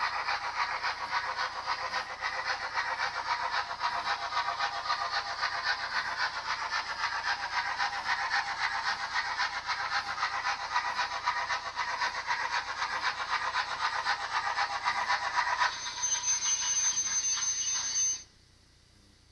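OO-gauge model Princess pacific steam locomotive with a DCC sound decoder, running with a fast stream of steam exhaust chuffs from its small speaker over the whirr of the model's wheels and motor. Near the end the sound changes and a thin high steady tone sounds for about two seconds, then all of it cuts off suddenly.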